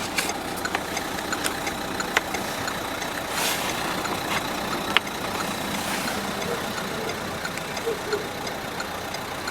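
Renault 1.5-litre four-cylinder turbodiesel idling steadily, with a number of short clicks and knocks over it.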